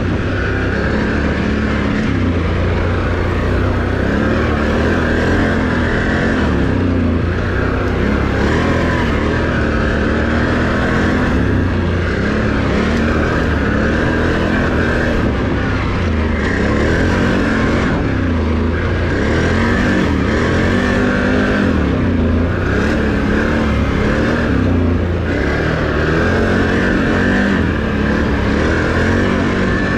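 Can-Am Renegade ATV's V-twin engine running under way, its pitch rising and falling again and again as the throttle is opened and eased off.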